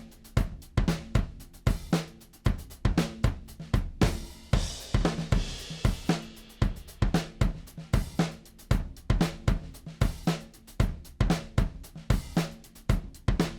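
Drum kit loop with kick, snare and hi-hats playing a steady beat, run through a Shadow Hills Mastering Compressor plugin on the drum bus. A cymbal crash rings out for about two seconds near the middle.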